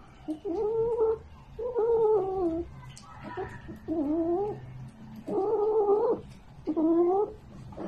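Domestic cat yowling in protest while it is given an injection under the skin: five long, drawn-out yowls, one about every second and a half.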